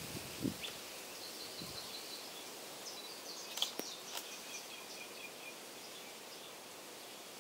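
Small birds chirping in short, faint twittering series over a steady outdoor hiss, with a few sharp clicks a little past the middle and a soft low thump near the start.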